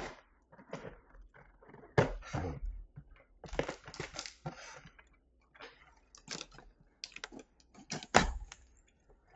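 Scissors cutting the tape on a cardboard box and the box being handled: an irregular run of sharp clicks, snips and short scrapes, the loudest about two seconds in and again near the end.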